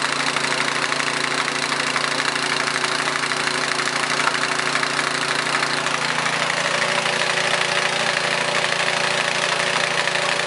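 Craftsman two-stage snowblower's single-cylinder engine running steadily on year-old fuel after a cold start; its tone shifts slightly about six seconds in.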